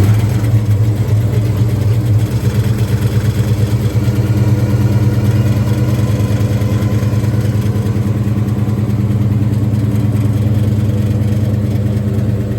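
A 1970 Chevrolet Chevelle's engine idling just after a cold start from stone cold, a steady, even rumble with fast regular exhaust pulses.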